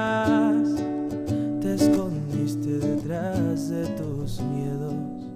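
Acoustic guitar being played, with a man's voice singing over it into the microphone.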